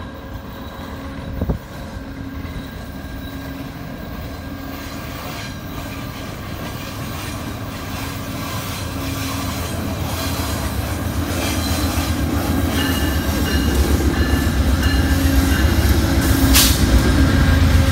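A GE P42DC diesel-electric locomotive's V16 diesel engine and rumble approaching, growing steadily louder as the train draws near. A single sharp knock sounds about a second and a half in.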